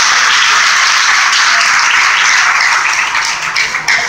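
Congregation applauding. The dense applause thins into scattered individual claps about three seconds in and begins to die away.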